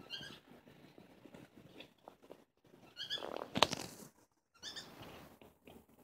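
Gritty scraping and stirring of a wet sand mix in a plastic bucket. Short, high squeaky chirps come three times and a sharp knock about three and a half seconds in is the loudest sound.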